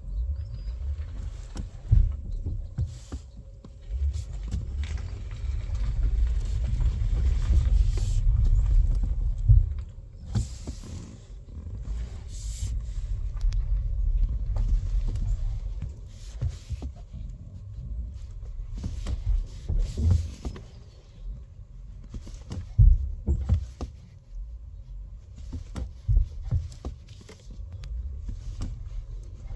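Tesla car making a thumping noise: irregular low thumps and sharp knocks over a steady low rumble.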